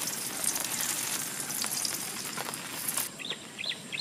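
Fat sizzling and crackling in a small nonstick frying pan on a camp stove, cutting off about three seconds in. A small bird then chirps a few times near the end.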